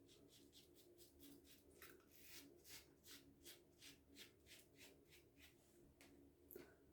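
Faint short scraping strokes of a Karve CB safety razor cutting two days of stubble, about three strokes a second.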